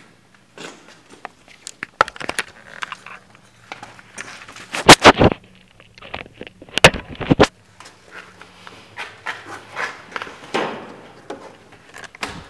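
Footsteps and scuffing on a gritty floor, with handling noise from a moving handheld camera. Two loud crackling scrapes come about five and seven seconds in.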